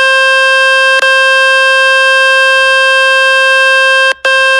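Loud, steady buzzing tone from a speaker-cleaning website, played on a phone to shake water and dust out of the speaker grille. It breaks briefly with a click about a second in and drops out for a moment near the end.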